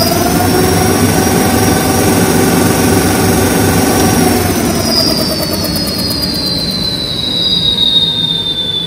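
QS 8 kW electric hub motor spinning the motorcycle's rear wheel off the ground: a high electric whine over a rushing noise, holding steady for about four seconds, then falling in pitch as the wheel slows.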